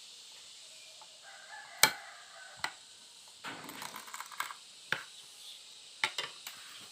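A rooster crowing, with a few sharp knocks and clicks in between.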